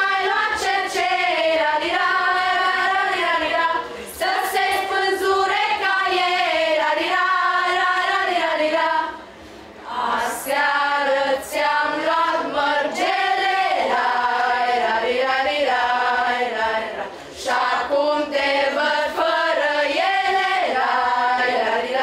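Young voices of a school vocal group singing a Romanian folk song unaccompanied, in sung phrases with short pauses about 4, 9 and 17 seconds in.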